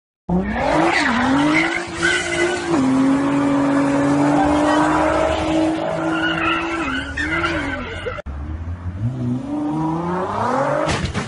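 A car engine revving hard while its tyres skid and squeal on the road as the car slides. The revs climb, hold high and dip several times, then rise steeply again near the end.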